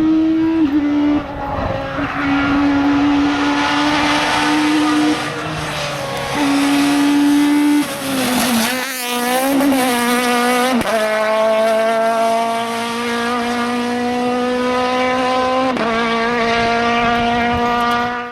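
Citroën AX Kit Car rally car's engine at high revs under hard driving. The pitch holds high with sudden drops as it shifts gear, wavers up and down for a couple of seconds about halfway through, then climbs steadily as the car accelerates and drops again near the end on an upshift.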